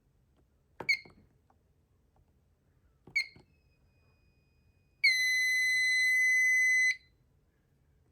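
Electronic fire alarm sounder giving two short chirps, each with a click, then one steady high-pitched beep lasting about two seconds that cuts off sharply.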